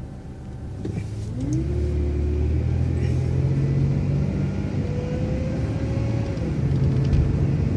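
Transit bus engine running, getting louder with a whine that rises in pitch about a second and a half in and then holds steady, as the bus gathers speed.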